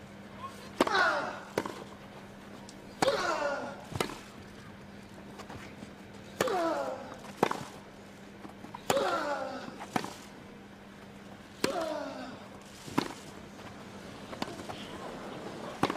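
Tennis rally on grass: a racket strikes the ball about every second and a half, some eleven crisp hits. On five of them a player gives a short grunt that falls in pitch, while the crowd stays silent.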